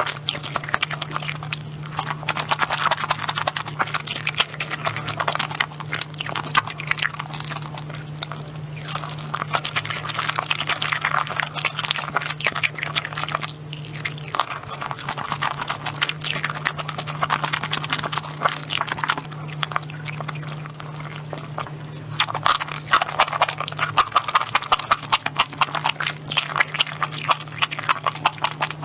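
Close-miked chewing and crunching of food, a dense run of quick wet and crisp mouth clicks that swells and eases in stretches, over a steady low hum.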